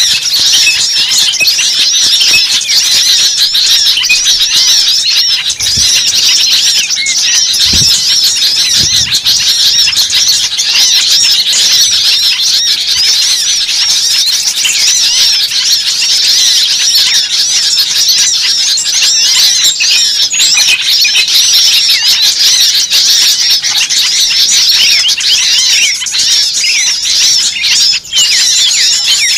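A dense, continuous chorus of many birds chirping and squealing at once: countless short, high calls overlapping without a break.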